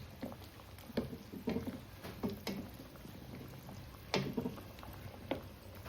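Pot of chicken-foot soup simmering while it is stirred, with a utensil knocking against the pot about six times at uneven intervals, the loudest knock about four seconds in.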